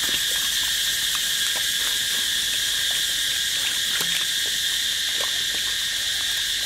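A steady, high-pitched chorus of insects buzzing without a break, with faint soft squelches and ticks of a hand mixing raw pig intestines in a wok.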